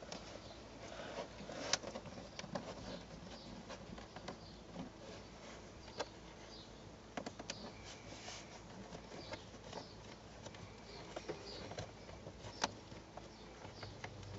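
Scattered light clicks, taps and rustling as hands work a car's plastic interior trim and cable, with a few sharper clicks, the loudest about two seconds in and again near the end. Faint bird chirps in the background.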